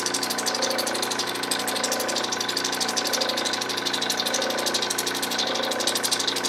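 Lapidary cabbing machine's motor and grinding wheels running steadily: a hum with a fast, even pulsing hiss over it.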